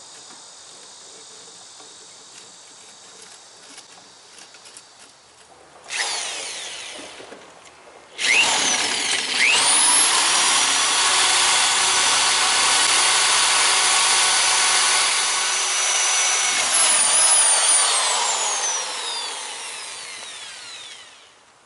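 Electric drill boring out a stubborn, rusted plain-steel bolt through a wooden canoe thwart. A short run about six seconds in, then a steady run from about eight seconds in, its pitch rising as it spins up and falling as it slows near the end.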